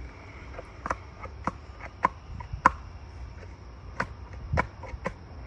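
Irregular sharp knocks and clicks, about seven in a few seconds, as the parts of a 3D buck archery target are handled and fitted together during assembly.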